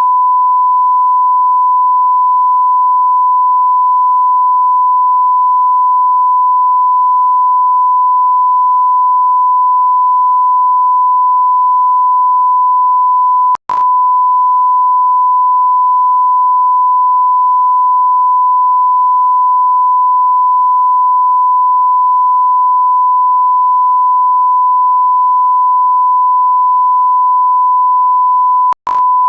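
Continuous electronic beep: a steady pure tone at about 1 kHz, the classic bleep sound effect. It cuts out for an instant with a click about 14 seconds in and again near the end, then carries on.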